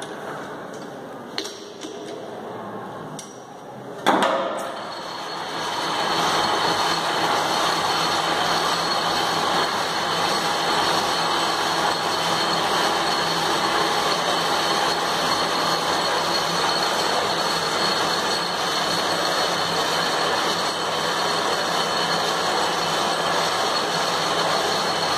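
A few light metal clicks, one sharp metallic clank about four seconds in, then a metal-turning lathe running steadily with a faint high whine.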